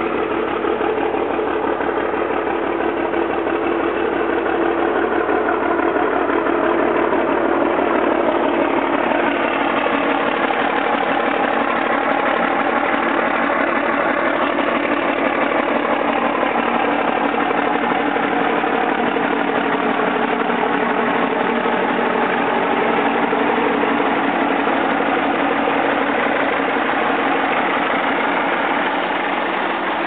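Kenworth LW523 logging truck's Cummins diesel engine idling steadily.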